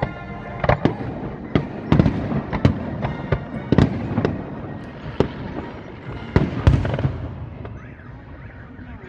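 Fireworks display: aerial shells bursting in an irregular run of sharp bangs, several close together, with the loudest about two, four and seven seconds in. The bangs thin out briefly near the end.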